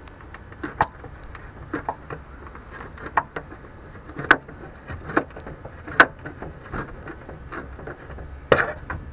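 A tool prying and knocking at the old plastic inside door handle and its round metal fastener, making irregular sharp clicks and knocks, about a dozen, the loudest about six seconds in and near the end.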